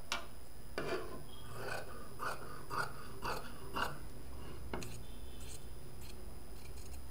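Long-bladed tailor's scissors cutting through cloth: a quick click, then a run of about six snips, roughly two a second, and one more snip a second later.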